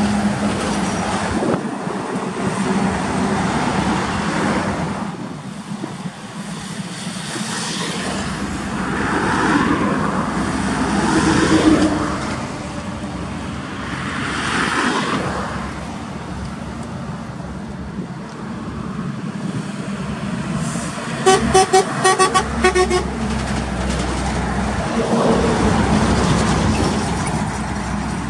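Heavy trucks with cattle trailers passing on a highway, their engine and tyre noise swelling and fading as each one goes by. About two-thirds of the way through, a horn sounds in a quick run of short blasts.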